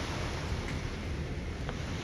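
Steady background hiss with a low rumble, broken only by a couple of faint ticks.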